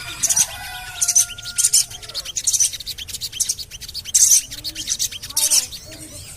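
Sogon birds calling: short bursts of rapid, high chirps about once a second, with a few lower whistled notes near the start. A lure call of the kind played to get a captive sogon to sing.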